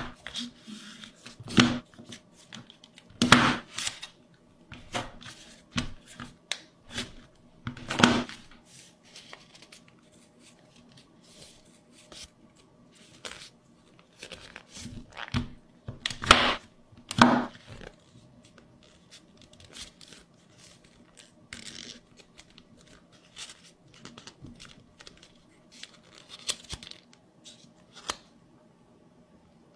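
A sheet of origami paper being folded and creased by hand: irregular crackling and swishing as it is bent, slid and pressed flat, with a few louder sharp creasing strokes.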